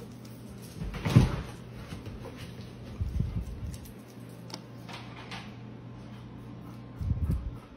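Dogs moving about on a wooden floor: a few dull thumps, about a second in, around three seconds and near the end, and faint ticking clicks between them, over a steady low hum.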